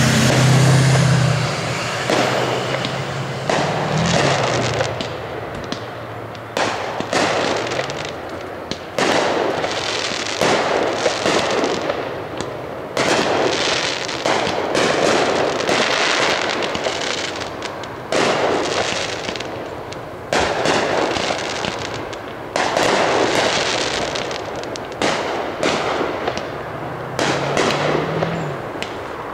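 Aerial firework shells bursting overhead: a steady string of sharp bangs, one every second or two, each fading away before the next.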